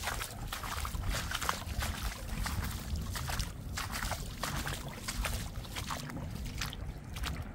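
Water of a flooded stream rushing and splashing, with many irregular small splashes over a low rumble.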